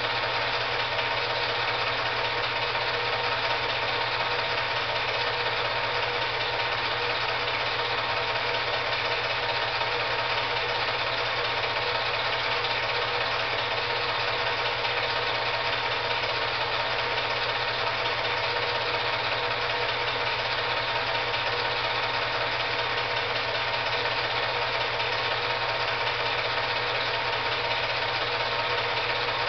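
Steady mechanical whir of an 8mm film projector running, an even hum with a few fixed tones and no change.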